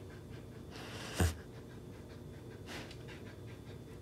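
Samoyed sniffing and breathing close up as it noses at corn kernels in a hand, with a few short sniffs and faint small ticks between them. A single sharp thump comes a little over a second in.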